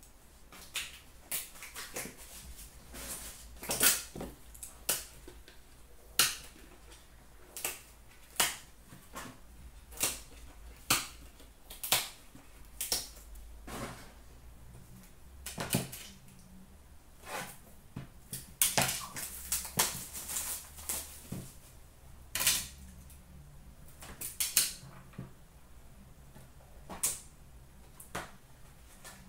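Trading-card packaging and plastic card cases being handled and opened: irregular sharp clicks, taps and short rustles, about one or two a second.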